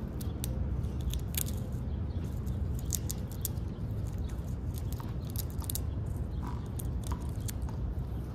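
Squirrel gnawing and cracking a peanut shell: quick, irregular sharp cracks and crunches, thickest in the first several seconds. Underneath is a steady low rumble.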